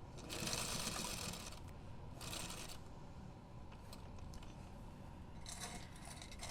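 Rustling and scraping of thick, stiffened quilted fabric as a bulky bag is pushed and shifted under a sewing machine, in two main bursts and a few shorter ones near the end.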